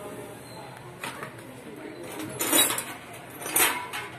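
Metal clinks and scrapes of a sewing machine head's steel parts and a hand tool being handled during disassembly, with two louder metal knocks about two and a half and three and a half seconds in.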